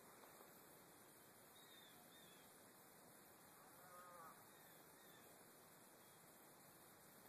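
Near silence: faint outdoor background, with a faint short animal call about four seconds in and a few faint high chirps.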